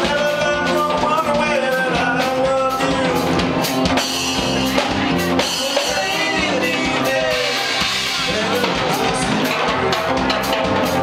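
Live rock band playing: drum kit keeping a steady beat under bass and electric guitars, with singing over the top.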